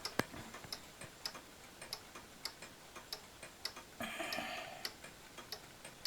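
Mechanical wall clock ticking steadily, about two to three ticks a second. A brief soft hiss comes about four seconds in.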